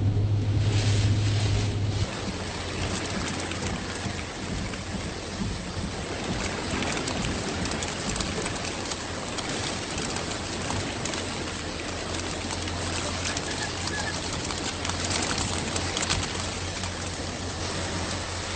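Heavy rain falling, a steady hiss. A low hum runs under it for about the first two seconds, then drops away.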